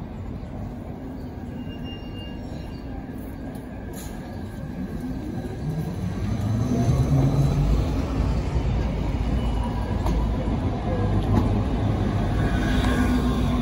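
Red city bus driving slowly past close by, its engine rumble growing louder about six seconds in and staying loud, with the engine note rising and falling as it pulls away.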